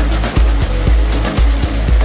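Background music with a steady beat: a heavy bass line with regular drum and cymbal strokes.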